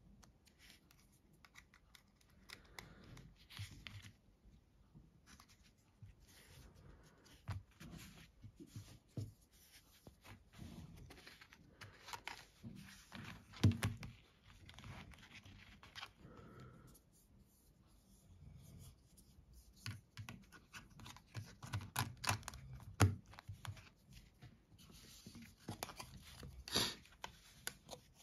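Close handling of a Sharp GX30 clamshell phone's plastic casing and battery cover: an irregular run of small clicks, scrapes and rustles, with a few sharper clicks about halfway through and twice near the end.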